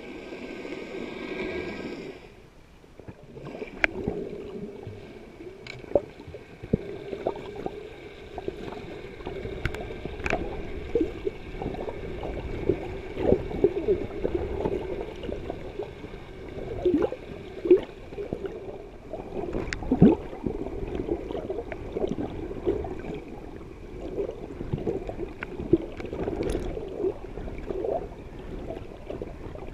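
Water heard through a submerged camera: muffled sloshing and gurgling with scattered clicks and pops. A steady hum stops about two seconds in.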